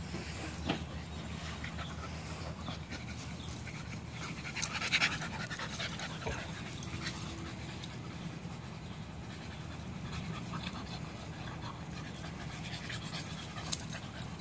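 Two dogs play-wrestling, panting, with scuffling and mouthing noises. There is a short louder noise about five seconds in and a sharp click near the end.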